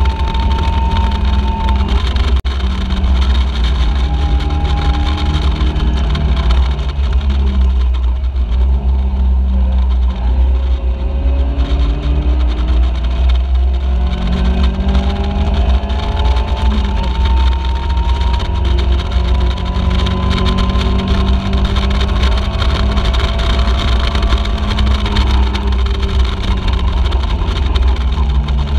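Caterham Seven race car engine at racing speed, its pitch climbing and dropping repeatedly as it revs up through the gears and comes off the throttle for corners, under heavy wind buffeting on an open-cockpit onboard microphone.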